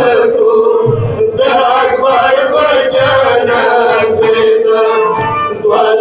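Male chanting of a Shia matam lament with musical accompaniment, the voice holding long, slowly wavering notes. Low thumps come under it roughly every two seconds.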